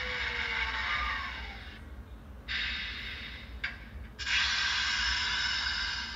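Trix 22968 HO scale Crocodile model locomotive on a rolling-road stand, its running sound dropping in pitch and fading over the first second or so as it slows. Then come two bursts of hiss with abrupt starts and stops: a short one about two and a half seconds in, and a longer one from about four seconds.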